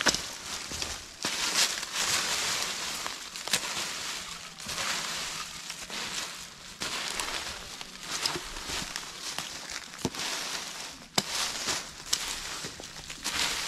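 Dry leaf litter and twigs rustling and crackling as a metal snake hook rakes and pokes through a leaf pile, with a few sharp clicks along the way.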